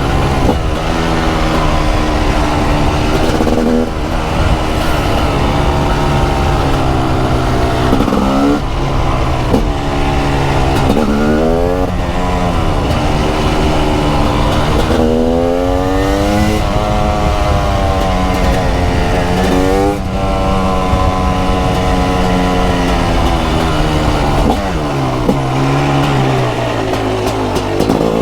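TM SMR 300 supermoto's 300cc two-stroke engine under hard throttle, its pitch climbing and dropping again and again as it revs up through the gears and backs off.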